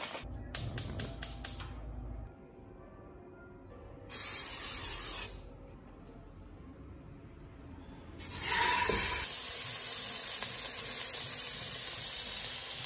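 A hand grinder cranked over raw steak, a quick run of grinding clicks for the first second or two. A short hiss about four seconds in, then from about eight seconds in a steak frying in a pan with a steady sizzle.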